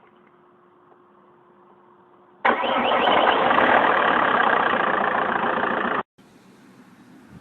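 Vectra 1.9 CDTi turbodiesel being started: the starter cranks and the engine catches, loud for about three and a half seconds from a sudden start a couple of seconds in, then cuts off suddenly.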